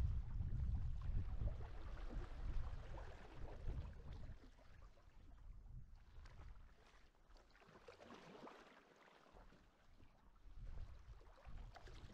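Sea kayak being paddled in calm water: soft splashes and drips of the paddle blades dipping in, with water moving along the hull. A low wind rumble on the microphone is strong at first, fades after a few seconds and comes back near the end.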